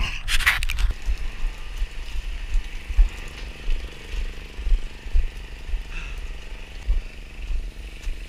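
A short yell in the first second. After that, irregular low thuds and rumble of footfalls and wind buffeting on a body-worn action camera's microphone as the runner climbs scaffold stairs.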